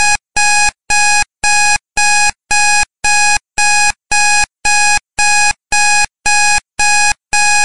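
Electronic timer alarm beeping at the end of a countdown: a run of identical short, loud beeps, a little under two per second, each a steady single pitch.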